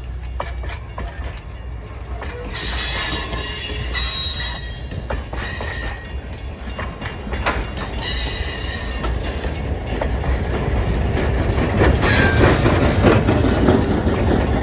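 Passenger train rolling slowly past: steel wheels clicking over the rail joints and squealing against the rails at times. Near the end the diesel locomotive comes by and the sound grows louder and heavier.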